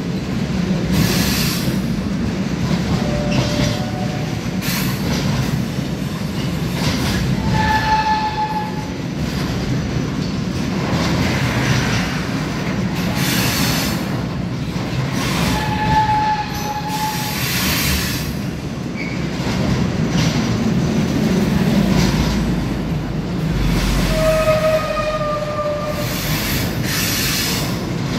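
Freight train of pocket wagons loaded with semi-trailers rolling steadily past: a continuous low rumble with wheel clatter, broken several times by short high squeals from the wheels.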